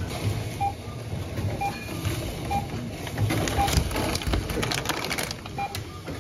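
Supermarket checkout barcode scanner giving short single-pitched beeps, five in all, about one a second, as items are scanned. Packaged groceries clatter and rustle as they are handled, loudest in the middle stretch.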